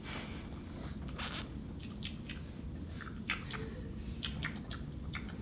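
Irregular small crackles and crunching clicks, several a second at times, over a steady low hum.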